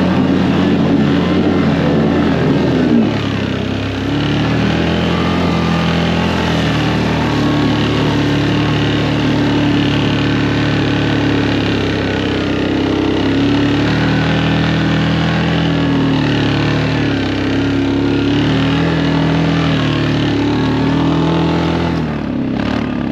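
A vehicle engine running under way, its speed rising and falling every few seconds; it cuts off suddenly near the end.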